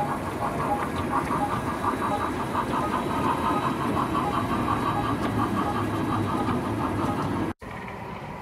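O scale model goods train, hauled by a model NSWGR steam locomotive, running past on the layout's track: a steady rolling rumble with a rapid, rhythmic clatter. It cuts off abruptly near the end, leaving a quieter background hum.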